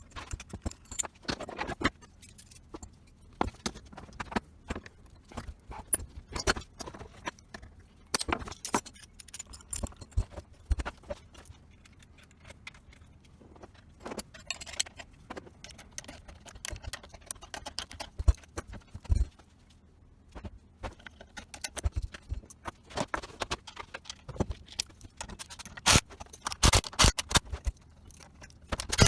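Irregular clinks, clicks and knocks of small metal parts and hand tools being handled and set down, with a cluster of louder knocks near the end.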